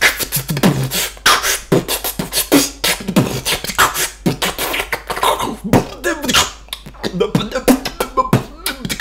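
A man beatboxing: a fast, uneven run of sharp mouth-made percussion strokes, with sliding vocal tones woven in around the middle.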